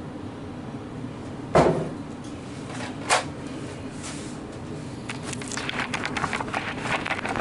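Kitchen handling noises. A loud, dull thump like a cupboard door shutting comes about one and a half seconds in, then a single sharp knock about three seconds in. Near the end there is a quick run of light knocks and rattles while a plastic milk jug is handled.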